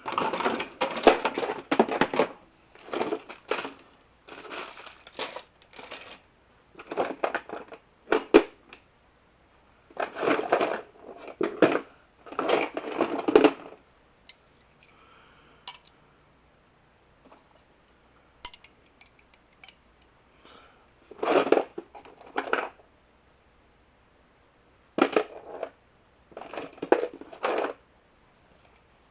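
Metal hand tools clinking and rattling in repeated bursts as they are rummaged through, with a quieter stretch midway.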